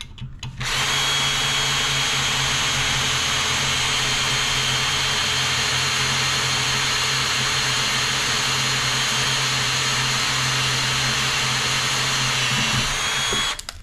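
Cordless drill running steadily with a small pilot bit, boring through the soft, corroded zinc stub of a pencil anode held in its brass holder. The motor's whine rises a little just before it stops, as the bit breaks through.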